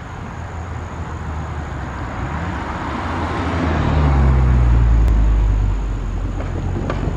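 A car passing close by on the road, its engine and tyre noise swelling to a peak about four to five seconds in and then fading as it drives off over the crossing.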